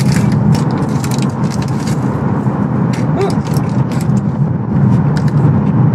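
Steady low road rumble inside a car's cabin as it drives through a tunnel. Scattered light clicks and crinkles come from the paper-wrapped donut being handled.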